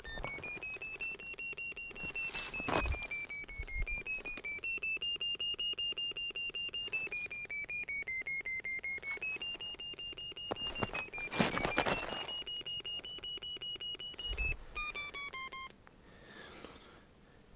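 Underground terrier-locator receiver beeping: a rapid run of pulses whose pitch slowly rises and falls with the strength of the signal from the dog's collar transmitter, ending near the end with a few stepped tones as it goes off. Two brief loud rustles of handling cut across it.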